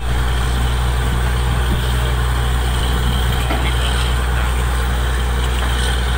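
Diesel engine of a truck-mounted borewell drilling rig running steadily, a deep even drone.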